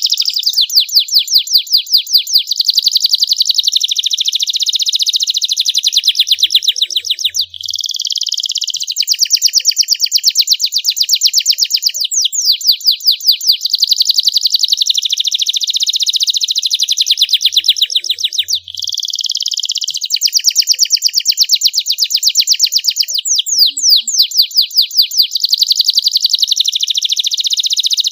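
Young domestic canary singing: a long, loud run of rapid trills, each a fast string of repeated high notes, shifting from one phrase to the next with only two brief breaks.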